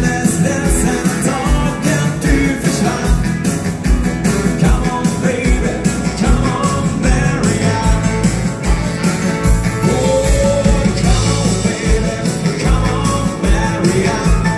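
A live dance band playing an upbeat rock'n'roll number, with a steady drum beat, electric guitars and singing.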